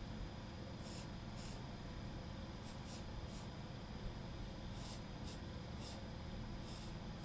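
Charcoal pencil drawing on sketchbook paper: several short, faint scratching strokes, some in quick pairs, over a steady low room hum.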